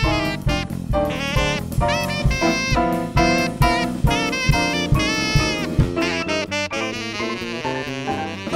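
Tenor saxophone playing a jazz melody of quick, short notes over a live band with drum kit, ending on a longer note with a fast waver.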